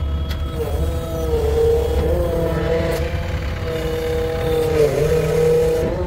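Diesel engine of a backhoe loader or tractor running steadily, its note dipping briefly about a second in and again near the end as it takes load.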